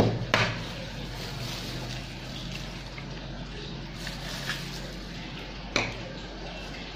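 A hen's egg being cracked into a plastic mixing bowl: a sharp crack just after the start, then a few light shell clicks as the shell is pulled apart, and a sharper click about six seconds in as the shell is set down in a small bowl.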